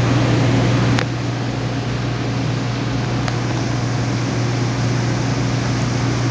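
Steady mechanical hum over an even hiss from running machinery, with a single sharp click about a second in.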